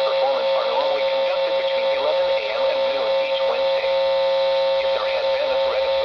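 NOAA Weather Radio broadcast heard through small receiver speakers: the station's automated voice reads the Required Weekly Test message, saying that tests are normally held between 11 AM and noon each Wednesday. A steady electrical hum on the transmitter's audio runs under the voice.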